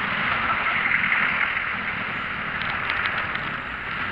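Steady rush of wind over the microphone and road noise from riding through slow traffic, with a few faint ticks about three seconds in.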